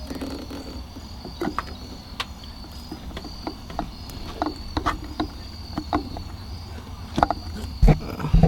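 Scattered light clicks and knocks of the S2000's shifter parts and spring being handled and slid back into the shifter housing, with a few louder knocks near the end.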